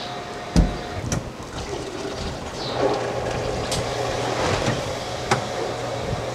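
Steady mechanical hum with a few sharp knocks and clicks scattered through it; the loudest is a low thump about half a second in.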